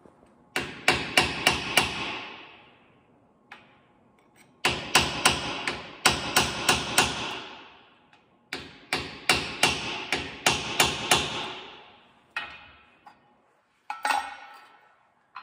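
Ball-peen hammer striking a steel rod on a crane mast, metal on metal, in three quick runs of blows at about four a second, each strike ringing briefly. A few lone knocks follow near the end.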